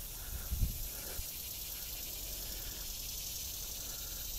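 Insects chirring in a steady high-pitched chorus, with faint short chirps recurring about once a second and a brief low thump about half a second in.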